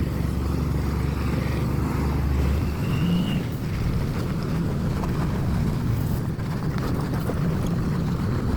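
Steady engine and road rumble of a moving vehicle, heard from on board while travelling along the road. The low hum shifts slightly about two and a half seconds in.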